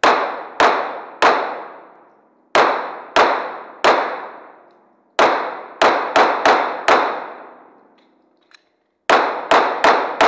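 Shots from a 9mm Glock 17 pistol fired in quick strings: three evenly spaced shots, three more, then a faster run, a pause of about two seconds, and another fast run. Each shot rings on with a long echo in the indoor range.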